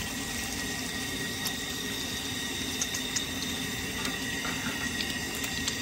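Trout pieces deep-frying in a wide karahi of boiling oil: a steady sizzle and bubbling, with a few faint clicks.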